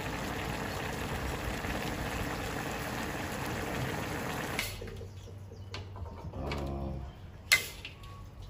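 Bullfrog and soybean stew simmering in a wok, a steady bubbling of thick sauce. After about four and a half seconds it gives way to a metal spatula scraping the wok and knocking on a steel tray as the food is dished out, with one sharp metal clack near the end.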